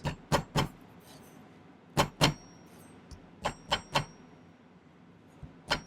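Sharp metallic clicks and taps as wide half-round sterling silver wire is worked with a metal hand tool, about eight in all, several in quick pairs, some leaving a brief high ring.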